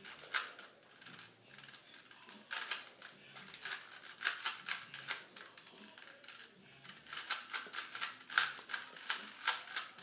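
3x3 Rubik's cube layers being turned rapidly by hand during a solve: a quick, irregular run of small plastic clicks and clacks.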